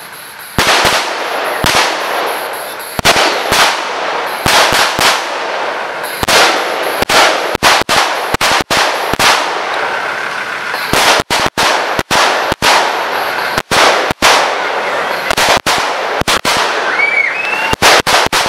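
A string of loud, irregular bangs from staged battle pyrotechnics, several coming in quick clusters.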